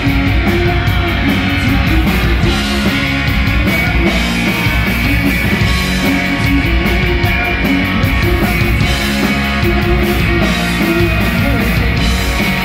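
A rock band playing live and loud: electric guitar, bass guitar and a Canopus drum kit with cymbals, played without a break.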